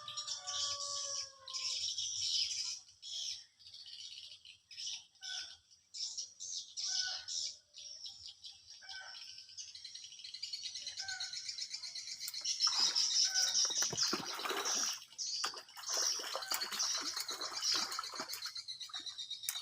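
Birds chirping and twittering in a dense, continuous high-pitched chorus, with a few clear whistled notes at the start. From about two-thirds of the way through, a louder stretch of irregular crackling noise joins in.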